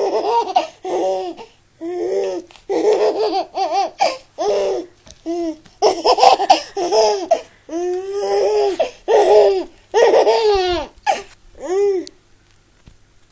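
Five-month-old baby laughing in a run of short, high-pitched bursts with brief pauses for breath between them, stopping near the end.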